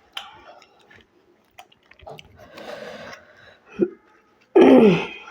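Close-miked chewing and biting of food, with soft wet clicks and crunches. Near the end comes a short, loud voiced sound that falls in pitch.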